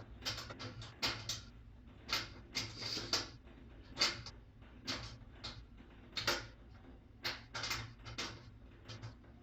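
Irregular sharp clicks and knocks of a tool and metal parts being handled while the hinge screws of a front-load washer's door are taken out.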